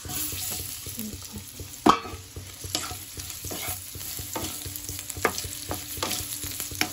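Cubed potatoes sizzling as they go into hot oil in a kadhai and are stirred, with a spatula scraping and clicking against the pan now and then. A single sharp metal clank about two seconds in stands out above the rest.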